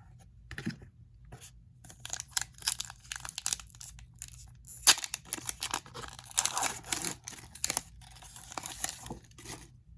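A trading card pack's plastic-foil wrapper being torn open and crinkled by hand: a run of sharp crackling and tearing sounds, loudest about halfway through.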